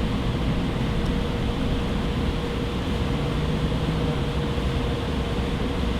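Steady mechanical hum of workshop background noise: a low rumble with a faint constant tone running through it.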